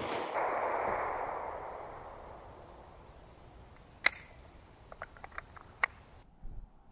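The echo of a handgun shot rolls away over the woods and fades over about three seconds. A second sharp gunshot comes about four seconds in, followed by a few light clicks.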